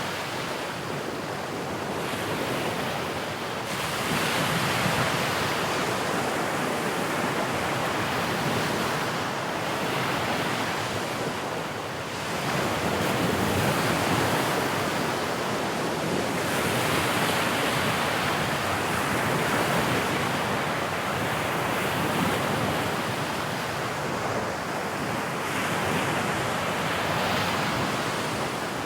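Sea waves breaking and washing onto the shore: a continuous surf roar that swells and eases as each wave comes in every few seconds.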